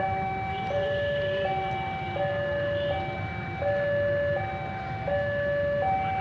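Electronic two-tone warning alarm alternating evenly between a higher and a lower note, each held about three-quarters of a second, over a steady low rumble.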